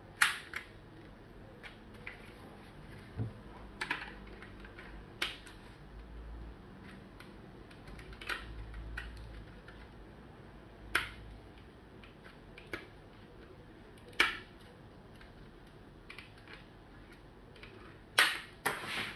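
Sharp, irregular clicks of a small screwdriver prying and tapping at a part on the router's circuit board while the plastic housing is handled, about eight in all, with a close pair of loud clicks near the end.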